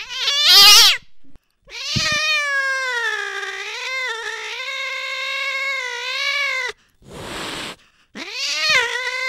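A cat yowling and caterwauling: a short high meow, then a long drawn-out wavering yowl of about five seconds, a brief hiss about seven seconds in, and another yowl starting near the end.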